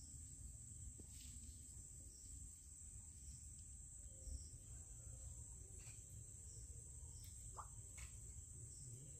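Faint, steady high-pitched chirring of crickets, close to silence, over a low rumble, with a few faint ticks and one short chirp near the end.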